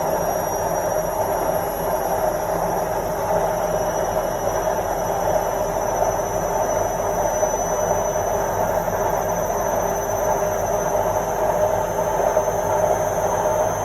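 Washing machine on its final spin cycle, the drum spinning steadily: a loud, even rumbling rush with a faint, steady high whine above it.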